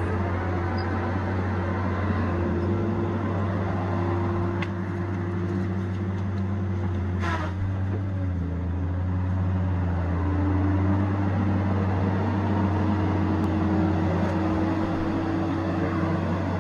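Tigercat 870C feller buncher's diesel engine running steadily at working speed. About seven seconds in, its note drops briefly with a short hiss, then recovers.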